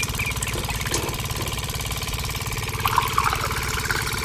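Small engine idling steadily with a rapid, even chug, and a brief burst of higher squeaks about three seconds in.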